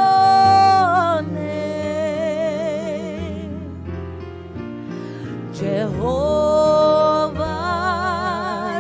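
Gospel worship singing over sustained electric keyboard chords. A singer holds long notes with a strong vibrato; the line slides down about a second in and climbs to another held note about six seconds in.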